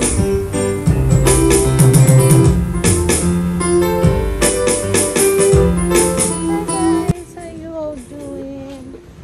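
Upbeat background music with keyboard, bass and a steady beat, which cuts off abruptly about seven seconds in; a quieter voice follows.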